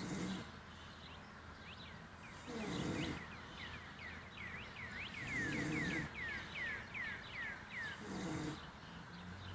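A man snoring in his sleep, with a rough snore on each breath about every two and a half to three seconds. Through the middle there is also a fast run of short, high, falling chirps.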